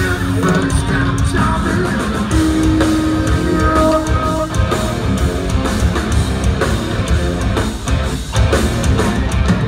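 Live heavy rock band playing an instrumental passage: distorted electric guitars riffing over bass and drums, with no singing.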